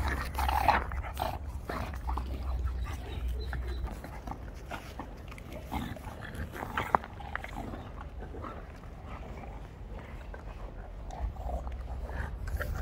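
Puppies play-fighting, giving short dog sounds now and then, loudest about half a second in.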